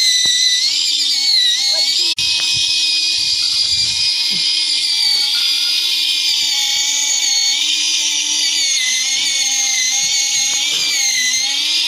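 Small electric drive motor and gears of an RC model tractor, a replica Mahindra Arjun Novo, whining steadily as it pulls a loaded trolley. The whine's pitch dips and recovers about a second in and again near the end, and the sound cuts out for an instant about two seconds in.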